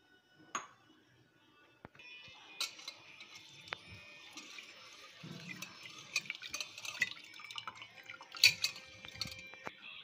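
A single sharp clink about half a second in, then Mapillai samba red rice being washed by hand in water in a metal pot: water sloshing and splashing, with many small clicks of grains and fingers against the metal, the loudest splash near the end.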